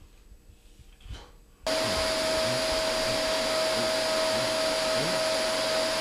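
Vacuum cleaner switched on abruptly a little under two seconds in, then running steadily with a constant whine over its rushing noise.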